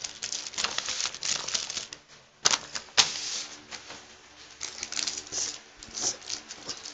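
Plastic candy wrapper crinkling and crackling as it is handled, with two sharper clicks about two and a half and three seconds in.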